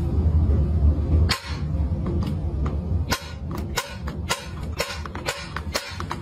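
Thumb pressing on the lid of a pull-ring metal tin can, making sharp metallic clicks. There is a single click about a second in, then a quick run of clicks, about three or four a second, through the second half.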